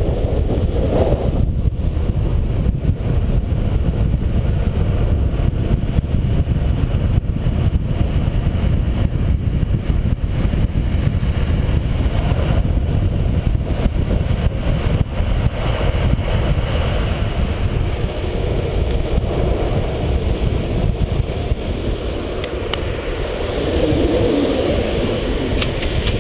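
Steady rush of wind on the microphone over the rumble of longboard wheels rolling on asphalt, ridden fast downhill.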